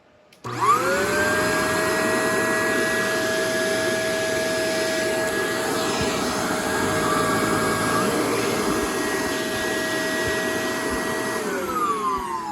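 Shark Rotator TruePet upright vacuum cleaner switched on about half a second in. Its motor whine rises quickly to a steady pitch over a rushing airflow noise and runs on. Near the end it is switched off, and the whine falls as the motor spins down.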